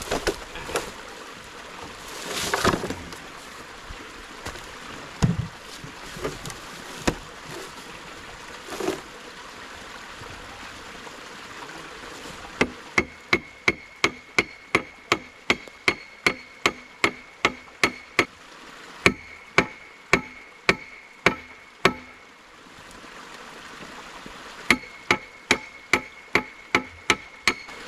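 A long metal bar is rammed repeatedly into the bore at the centre of a wooden waterwheel's hub, giving sharp metallic knocks with a ringing note, about two or three a second. The knocks come in runs with short pauses, after a few scattered knocks and handling sounds.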